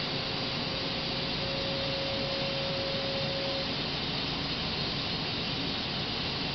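Hitachi HiCell CH250 CNC machine running during a spindle-to-spindle part transfer: a steady hiss of machine noise with a thin, steady whine that stops a little over halfway through.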